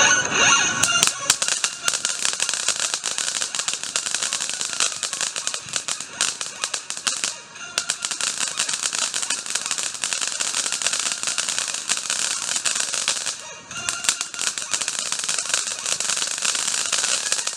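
Consumer firework crackling: a dense, rapid stream of small pops that goes on for about sixteen seconds, dipping briefly twice, then stops.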